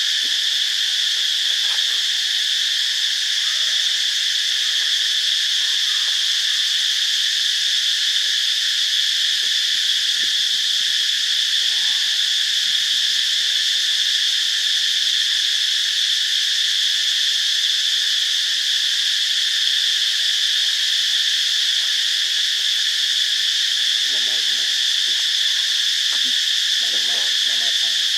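A loud, steady chorus of insects: one unbroken high-pitched drone that does not change. Faint voices come in near the end.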